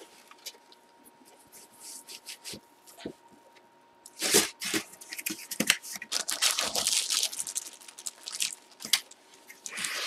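Faint handling clicks at first, then from about four seconds in a cardboard box is opened and a jersey sealed in a clear plastic bag is handled, the bag crinkling and rustling for several seconds.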